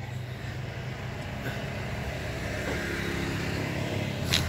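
An engine running steadily with a low, even hum, and a brief sharp click about four seconds in.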